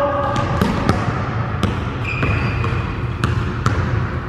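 Basketball bouncing on a hardwood gym floor, a handful of separate, unevenly spaced bounces, with one short high squeak about two seconds in.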